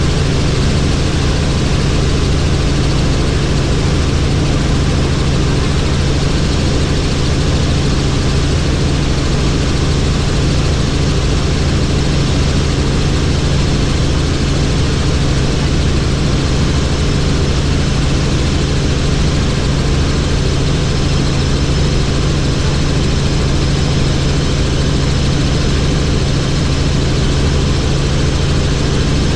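Helicopter in steady flight: rotor and engine running at a constant pitch, a strong low hum with evenly spaced tones over a steady hiss, unchanging throughout.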